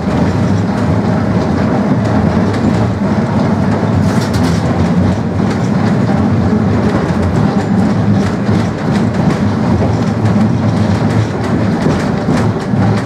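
Old four-wheel tram running along the track, heard from inside the passenger compartment: a steady low rumble of the wheels on the rails with frequent clicks and rattles.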